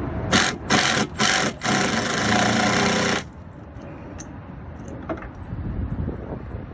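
Power drill working a fastener into composite deck boards. It runs in three short bursts, then a steady run of about a second and a half that cuts off suddenly, followed by faint clicks and handling noise.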